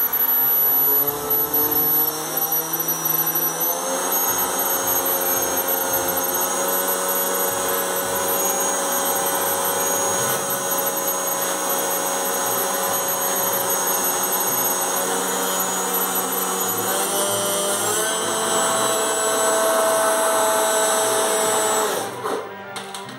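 Electric motor and propeller of an RC balsa Piper Cub model running on the ground: a steady whine that rises in pitch a few seconds in and steps up twice more later as the throttle is raised. It cuts off near the end.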